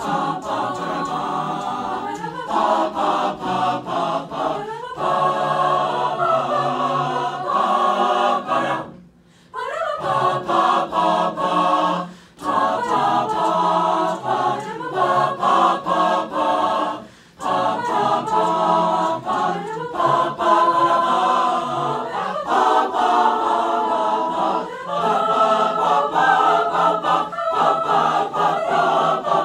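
Mixed-voice chamber choir singing a cappella in parts, sustained chords broken by a few brief pauses between phrases, the longest about nine seconds in.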